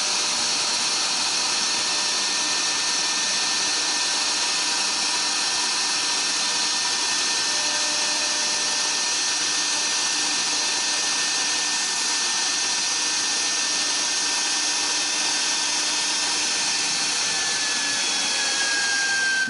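HSD router spindle on a CNC router cutting through 5 mm aluminium composite panel (aluminium–polyethylene–aluminium): a steady, loud high-pitched whine over dense cutting noise, with one tone dipping slightly in pitch near the end.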